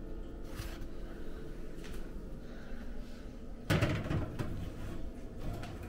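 An oven door swung open with a clunk and a brief rattle about two-thirds of the way in, after a few faint clicks as a metal loaf pan is handled.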